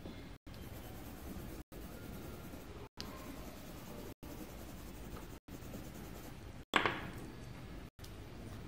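Coloured pencil scratching steadily across paper as a drawing is coloured in, the sound dropping out for an instant roughly every second. About seven seconds in there is one sharp clack, louder than the scratching.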